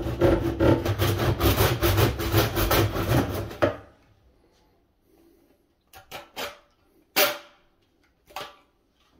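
A wood handsaw cutting through a plastic drain tube with quick back-and-forth rasping strokes, about three a second, which stop a little under four seconds in as the piece comes off. A few light knocks follow.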